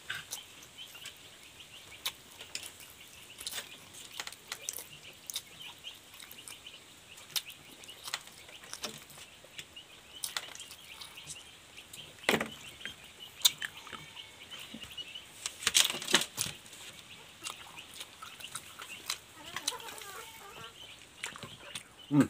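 Close-up eating sounds, wet chewing and lip-smacking heard as many short clicks scattered throughout, with chickens clucking in the background.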